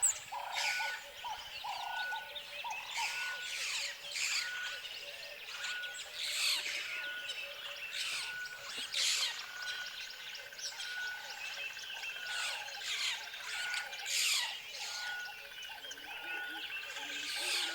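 Tropical forest ambience: many birds chirping and whistling over one another, with a short note repeating steadily in the background.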